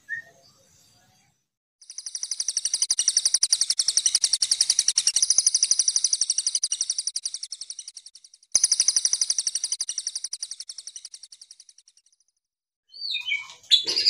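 Songbird song: a high, fast, evenly pulsed trill that starts about two seconds in, cuts off and restarts abruptly about eight and a half seconds in, then fades away.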